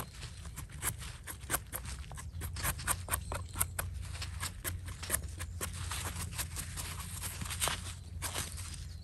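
Small knife blade scraping soil off the stem of a freshly picked bolete mushroom: quick, irregular scraping strokes, several a second.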